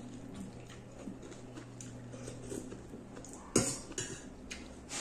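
Mealtime sounds: small clinks of a metal spoon against stainless-steel bowls and plates, over a low steady hum. About three and a half seconds in there is one louder, sharp sound, with a smaller one just after.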